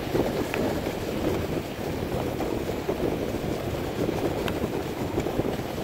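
Dog sled running at speed over a packed snow trail: a steady rushing, scraping noise of the runners on snow, with wind buffeting the microphone.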